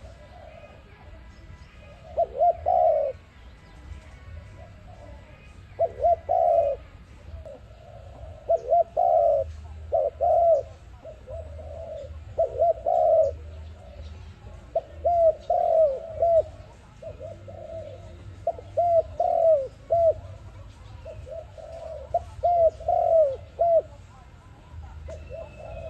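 Dove cooing: short phrases of a few quick coos each, repeated every couple of seconds, about ten phrases in all.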